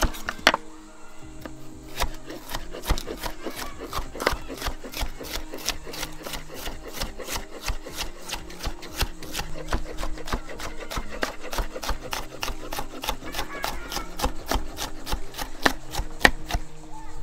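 Knife chopping vegetables on a cutting board in quick, even strokes, several a second, over background music with sustained notes.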